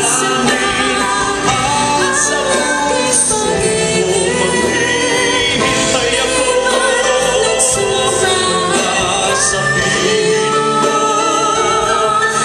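A live band playing a Filipino love ballad, with a singer's voice carrying the melody over the instruments.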